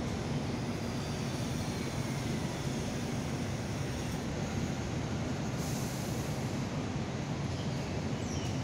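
Hong Kong Light Rail Phase 1 tram pulling away from the platform and receding, with a faint falling whine over a steady low rumble. A brief hiss comes about six seconds in.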